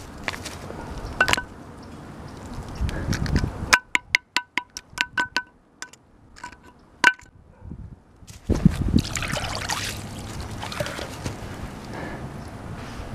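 Metal clinking and scraping as locking pliers handle a cast lump of aluminum on concrete: a quick run of sharp ringing taps, then a single tap, then a thump followed by a few seconds of rustling hiss.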